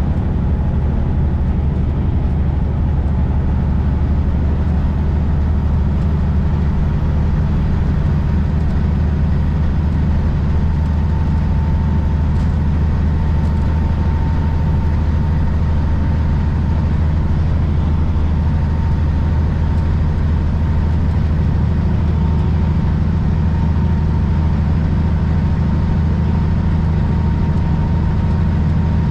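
Semi truck's diesel engine droning steadily with road noise, heard from inside the cab while driving, with a faint steady high whine over it.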